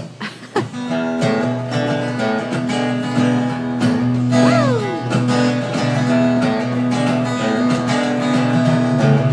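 Acoustic guitar strumming the intro of a country song, a steady rhythm of chords that comes in about a second in.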